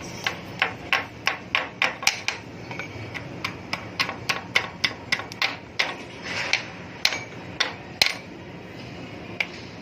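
Hammer blows during fitting work: a quick run of sharp strikes, about three a second, which slows to a few spaced blows after about six seconds, the loudest one about eight seconds in.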